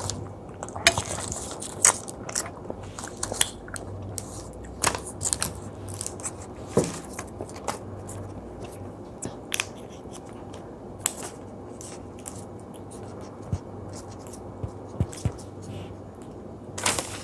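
Close-miked chewing of chewy gummy jelly: sticky mouth smacks and clicks, frequent in the first half and sparser later, with a louder cluster near the end.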